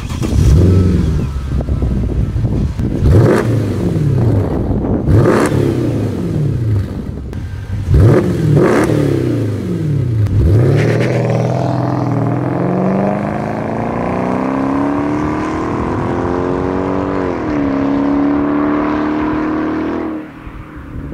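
2008 Mercedes-Benz SL550's 5.5-litre V8 with a muffler delete (straight pipe in place of the mufflers), revved in a few short blips. It then accelerates in a long pull of rising pitch, with one quick drop like a gear change, before the revs fall away near the end.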